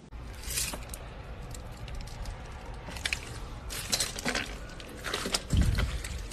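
Slime being squeezed and pressed by hand: irregular bursts of crackling, squishing clicks, with a low thump about five and a half seconds in.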